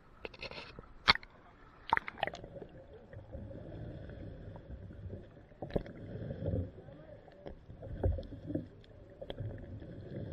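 Seawater churning and sloshing around a camera dipped just under the surface beside a fish-trap net. A few sharp hits stand out, the loudest about a second in.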